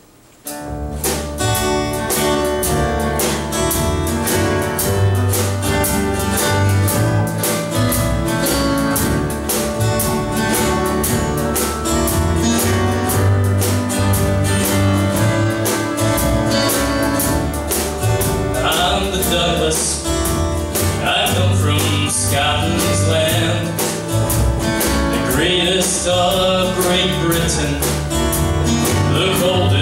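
Live band starting a song about half a second in, with acoustic guitar, drum kit and upright bass. A man's singing voice joins at about two-thirds of the way through.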